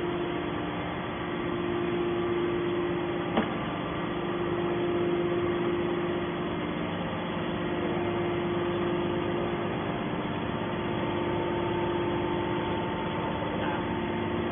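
Hydraulic scrap aluminum baler running with a steady hum, with one sharp knock about three and a half seconds in.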